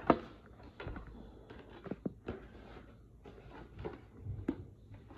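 Scattered light knocks and clicks of objects being handled, about six over a few seconds, the first the loudest.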